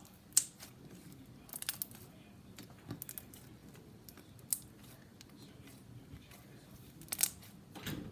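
Slime being squished and poked by hand, giving scattered sticky clicks and small crackly pops in short clusters, the loudest a little after seven seconds in.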